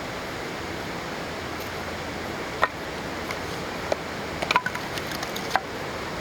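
Steady rushing outdoor noise with a handful of sharp clicks and cracks in the second half.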